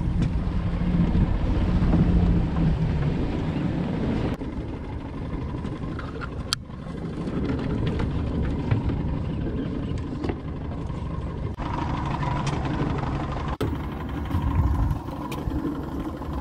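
A 200 hp outboard motor running steadily at low, trolling speed, a low hum under wind and water noise. The sound breaks off abruptly a few times.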